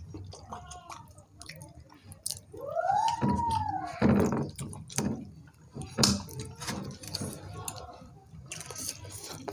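Eating by hand: fingers mixing soft rice on ceramic plates, with wet mouth sounds and small clicks. About two and a half seconds in, a single clear tone rises and then falls back over about a second.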